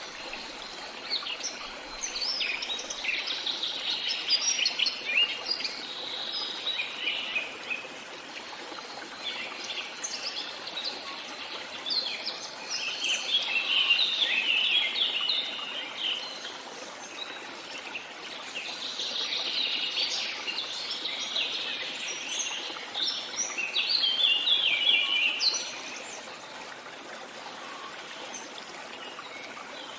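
Songbirds singing in three long bouts of rapid, high chirps over a steady soft wash of running water; only the water is heard in the last few seconds.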